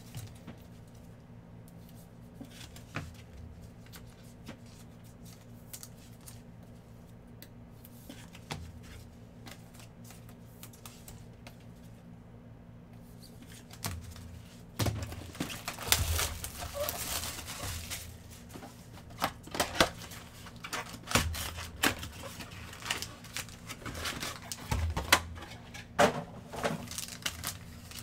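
Gloved hands handling trading cards and cardboard card boxes: a quiet stretch with a faint low hum and a few soft clicks, then from about halfway a busy run of knocks, clicks and crinkling as a Prizm basketball box is opened and its packs handled.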